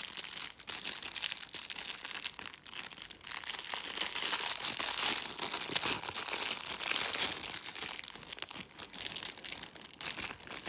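Clear plastic zip-lock bag crinkling and crackling as hands handle it and work it open, louder in the middle.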